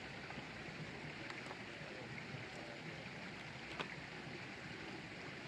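Metal kitchen tongs handling boiled crawfish, with one sharp click about four seconds in as they are set on a plate, over a steady rushing hiss.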